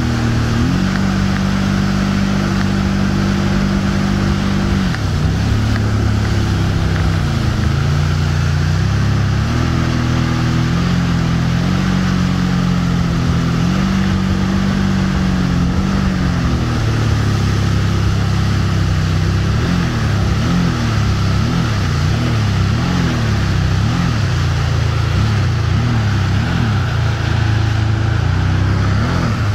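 Towing motorboat's engine running at speed over the rush of its churning wake and wind. In the second half the engine pitch rises and falls over and over, a little more than once a second.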